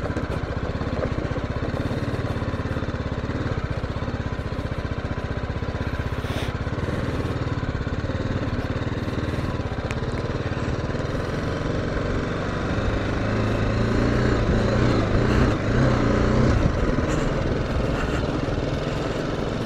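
BMW G310GS single-cylinder engine running at low revs as the motorcycle is ridden slowly, growing a little louder about two-thirds of the way through as it picks up speed.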